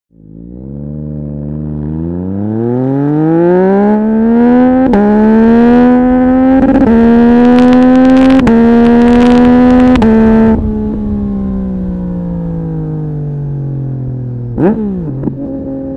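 Yamaha MT-09 SP's 890 cc inline-three engine under hard acceleration, the exhaust note climbing and dropping briefly at each of several quick upshifts. About ten seconds in the throttle closes and the note falls steadily as the bike slows, then two short rev blips near the end before it settles at a lower note.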